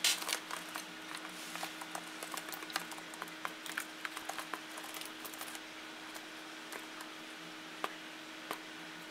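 Light, irregular clicks and taps of a budgie's beak and claws on a laptop's screen and keys. The taps come thick in the first half and thin out to a few sharper ones near the end, over a steady low hum.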